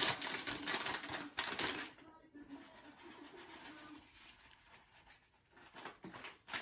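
Crackly rustling and clicking as shredded cheese is added to a plate of tortilla chips, loudest for the first two seconds and then fading to faint rustles.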